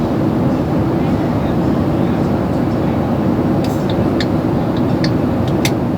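Steady drone of a Boeing 737 airliner cabin in cruise, engine and airflow noise heard from inside the cabin. A few short clicks sound in the second half.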